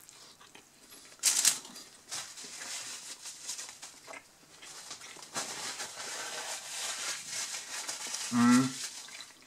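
A person chewing a bite of burger, with a rustle of the paper wrapper about a second in as the burger is set down on it, and a short hummed "mm" near the end.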